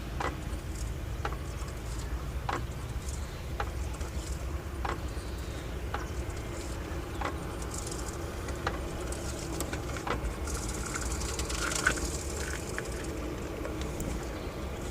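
Sharp clack in the drivetrain of a Skoda Octavia 1.8T (AGU), about one every second and a bit, as the car is rocked back and forth with fifth gear engaged. This is play taken up at each change of direction, a rattle the owner suspects comes from the dual-mass flywheel.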